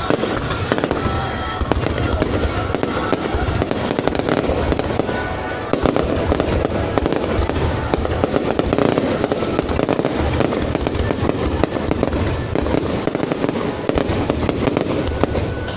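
Fireworks going off without a break: a dense, continuous crackle of rapid pops and bangs.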